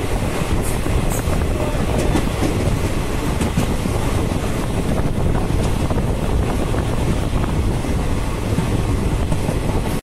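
Steady low rumble and wind rush of a moving vehicle, with a few faint clicks.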